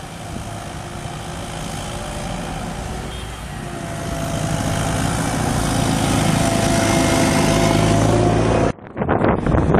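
Heavy snow-clearing vehicle's engine running, growing steadily louder as it approaches and passes close by. The sound cuts off abruptly near the end, followed by wind buffeting the microphone.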